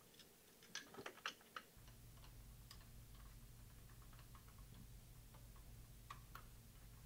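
Faint clicks and ticks of small tools and cable connectors being worked loose from the electronics box of a Paramount MX+ mount, with a quick cluster of sharp clicks about a second in. A low steady hum comes in just before two seconds.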